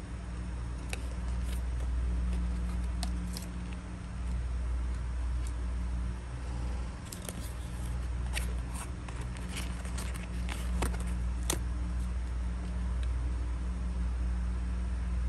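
A steady low hum, with light clicks and crackles of a card perfume sample sleeve and a small plastic-capped glass vial being handled, a few early on and a cluster of them about seven to twelve seconds in.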